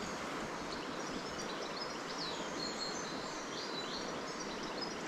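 Steady rush of a river running high and fast, with small birds chirping and singing over it in short high notes.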